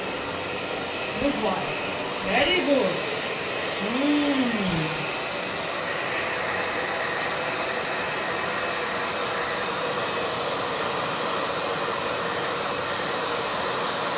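Hand-held electric hair dryer running steadily, blowing on a German Shepherd's coat. A few short vocal sounds that rise and fall come over it in the first five seconds.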